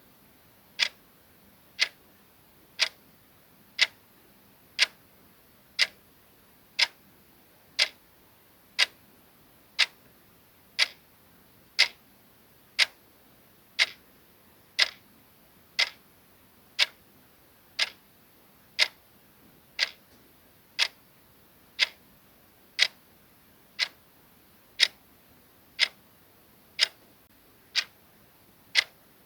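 Clock ticking sound effect: one short, sharp tick a second, steady and even.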